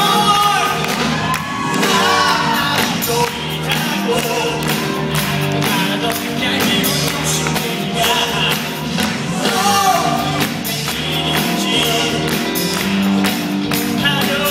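A male singer singing live into a handheld microphone over a loud, amplified pop backing track with a steady beat.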